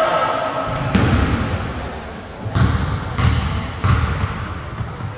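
A ball bouncing on a gym floor: four dull thuds at uneven spacing, echoing in a large hall.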